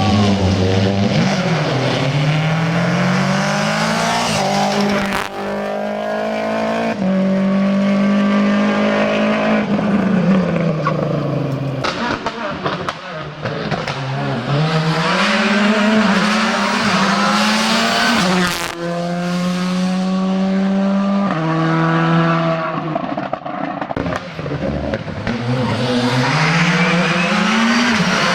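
Rally car engines revving hard. The pitch climbs and falls again and again as the cars accelerate, brake and shift gears, with quick stepped drops on downshifts.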